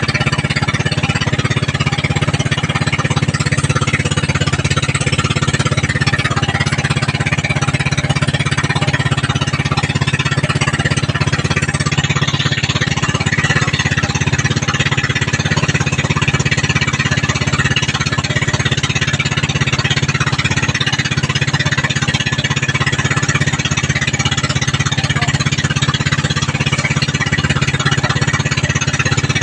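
Small engine of a motorized outrigger fishing boat (bangka) running steadily at cruising speed under way.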